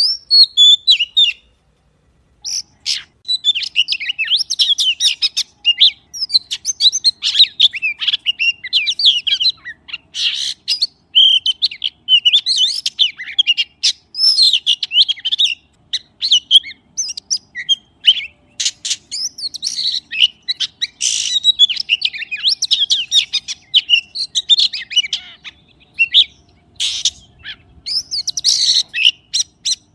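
Magpie singing: a fast, varied run of high chirps, whistles and short sharp notes, with a brief pause about two seconds in.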